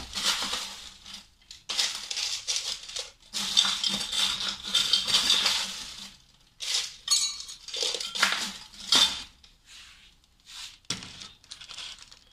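Ice cubes scooped into a 22-ounce glass, clattering and clinking in several separate scoopfuls, each a second or two long, growing fainter near the end as the glass fills.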